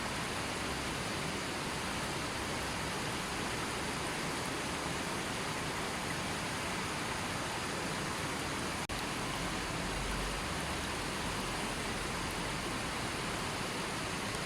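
Gentle river flowing steadily, an even rush of water with no other sounds. The sound briefly drops out for an instant about nine seconds in.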